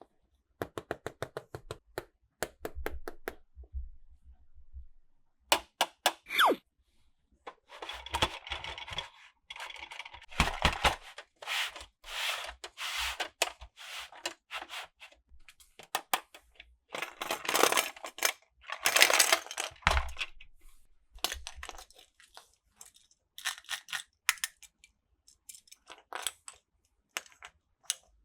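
Clicking and rattling clatter of plastic toy track and small toy cars being handled. A quick run of clicks near the start, then irregular bursts of rattling and scraping, with no steady motor running.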